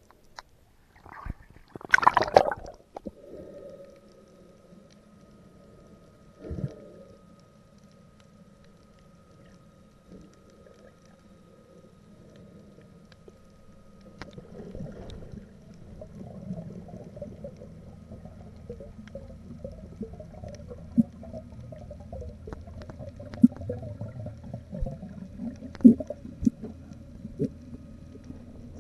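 Muffled underwater sound through an action camera's waterproof housing on a breath-hold dive. A loud splash about two seconds in as the diver goes under, then a faint steady tone for a while, then a low rumble from about halfway with a few sharp knocks.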